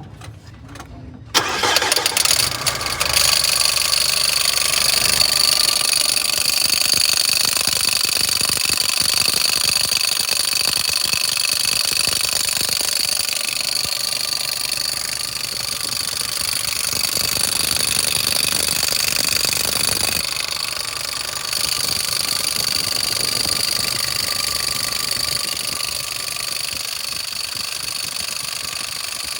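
Mercedes-Benz Sprinter 313 CDI four-cylinder diesel engine starting about a second in, then idling with a steady high-pitched whine from the front of the engine. The noise comes from a faulty alternator, not the turbo.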